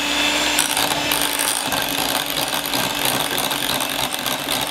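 Electric hand mixer running steadily at speed, its two beaters whipping body butter in a glass bowl: a constant motor whine over a noisy hiss.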